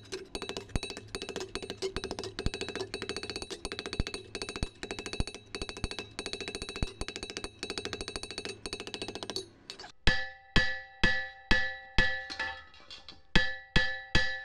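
A hand hammer striking a steel ring on a steel block to stretch its inner lip into a flange. The metal rings out with each blow: at first a rapid run of many blows a second, then from about ten seconds in separate blows about twice a second, each ringing clearly and dying away. The ringing is too loud.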